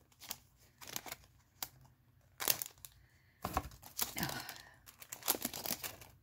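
Clear plastic cellophane packet of metal cutting dies crinkling as it is handled and pulled at, in short irregular crackles.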